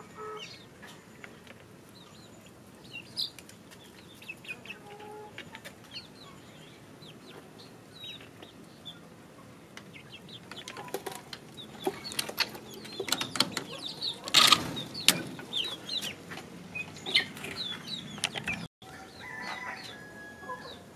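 A flock of young chickens peeping and clucking while feeding, many short high calls one after another. In the second half, sharp clicks and a few louder rustling crackles join in.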